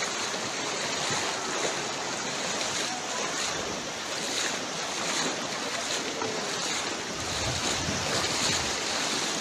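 Floodwater rushing and splashing: a steady wash of moving water with soft splashes recurring every second or so.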